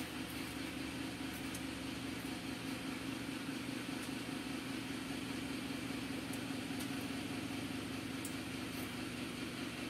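A steady mechanical hum, like an appliance motor or fan running, with a few faint clicks.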